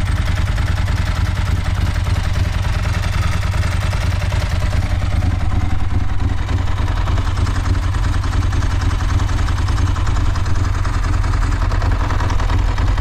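Ducati 916's 90-degree V-twin engine idling steadily with a fast, even pulse, just after being started.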